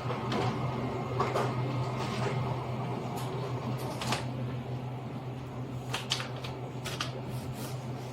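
Scattered clicks and rustling of objects being handled, over a steady low hum. The sharpest clicks come in a cluster near the end.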